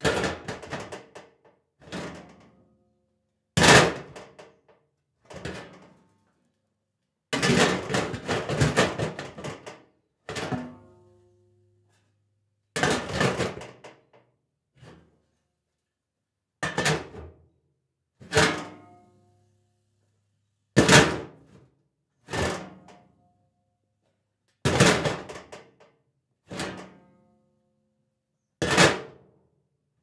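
Metal trash can lid being lifted off and set back on again and again: a series of separate metallic clanks, each ringing briefly, one every second or two. About a quarter of the way in there is a longer rattling clatter of the lid against the can's rim, and a few hits leave a low hum ringing from the can.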